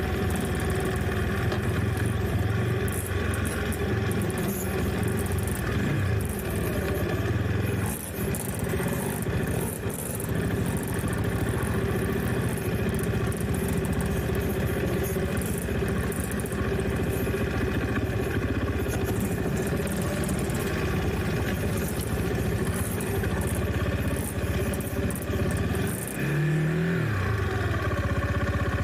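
Trail motorcycle engine running steadily, with a brief rev about two seconds before the end.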